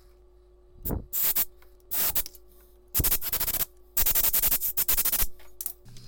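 Compressed-air blow gun giving five short hissing blasts, the last about a second long, blowing gunk and debris out of a stuck fuel line quick-connect fitting.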